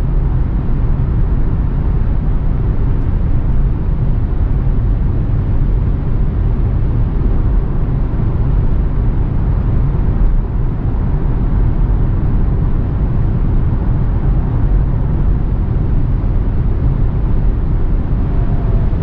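Steady road and wind noise inside the cabin of a BMW 330e xDrive Touring cruising at about 145 km/h on electric power alone, with no petrol engine running. Its speed is held near the car's electric top speed.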